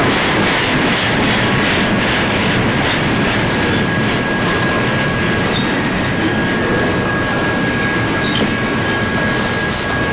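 Double-stack container train cars rolling past close by: a steady noise of steel wheels on rail with quick, regular clicking. About two seconds in, a thin, steady, high wheel squeal sets in and holds.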